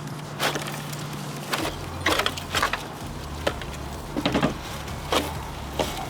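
Irregular clicks, snaps and rattles of a fire-damaged engine wiring harness being pulled and unclipped from the engine bay, over a steady low hum.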